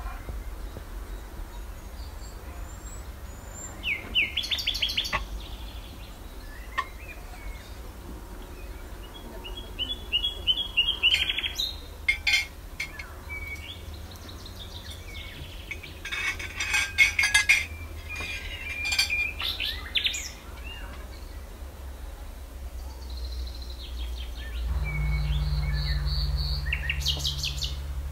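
Songbirds chirping and singing in several bursts of quick, high calls, over a steady low rumble; a low steady hum joins near the end.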